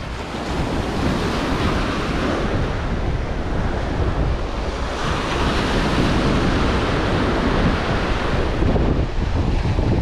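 Small Atlantic surf waves breaking and washing up the sand, with wind buffeting the microphone. The surf grows louder about halfway through.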